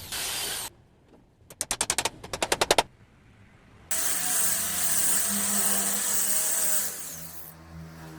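Carpentry work sounds: two quick runs of sharp knocks about ten a second, then a power tool running steadily for about three and a half seconds.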